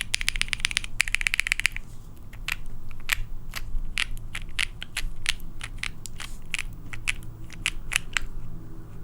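Typing on an Ai03 Vega mechanical keyboard with a half FR4 plate, lubed and filmed Penyu switches and GMK Dracula keycaps. A fast run of keystrokes for about the first second and a half, then single key presses about three a second, stopping about a second before the end.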